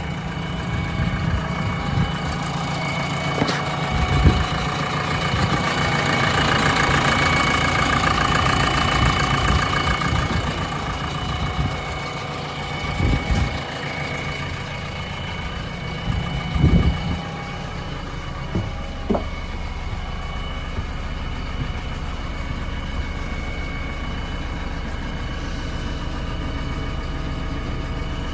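JCB 3DX backhoe loader's diesel engine running. It rises and falls in level over several seconds partway through, and a few dull knocks come about 4, 13 and 17 seconds in.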